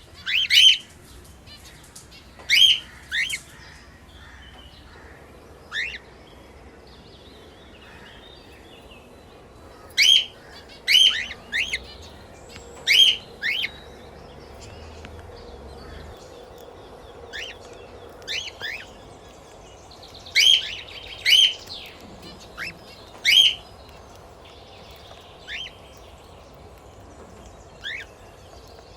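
Pet parrots chirping: short, loud, sharp chirps, often in quick pairs, come in irregular bursts a few seconds apart over faint background chatter.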